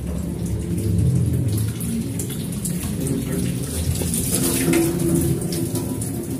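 Tap water running and splashing steadily, poured over a chest freezer's thick ice to melt it while defrosting.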